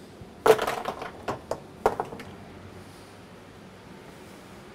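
Small base locks and pins being dropped into a polypropylene pallet box: a short clatter of hard clicks about half a second in, then a few single clicks, all over by about two seconds in.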